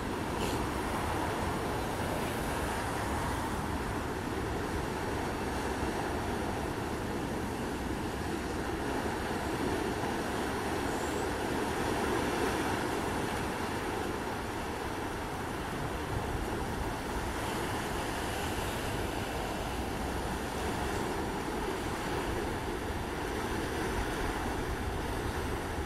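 Ocean surf washing steadily, a continuous rushing noise that swells a little midway and eases back.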